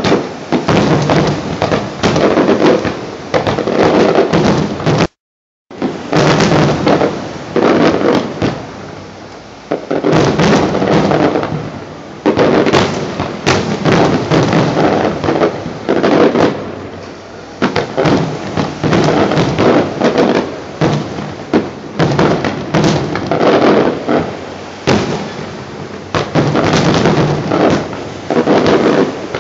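Fireworks going off in rapid, continuous volleys, the bangs overlapping into a dense crackle. The sound cuts out completely for about half a second some five seconds in.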